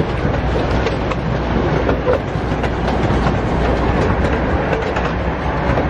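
Ride-on miniature park train running along its track, a steady rumble with frequent clicks from the wheels on the rails.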